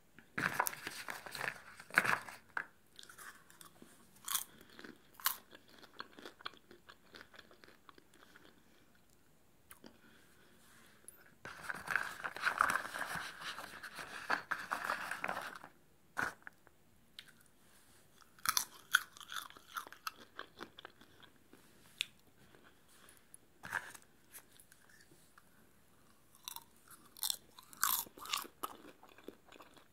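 Popcorn being chewed close to the microphone, crunching in clusters of sharp bites with quiet pauses between. In the middle comes a few seconds of denser rustling as a hand rummages through the popcorn in a plastic tub.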